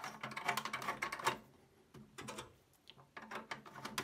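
A screwdriver working a mounting screw in a sheet-metal computer case: a run of quick metal clicks and scrapes, a short pause, then more clicks.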